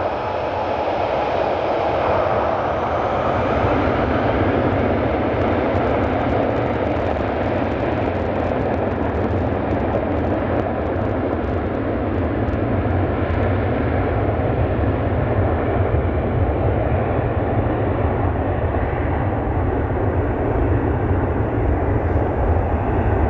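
Boeing 747-8F's four GEnx turbofan engines running as the freighter taxis and turns on the runway: a loud, steady jet rumble and rush.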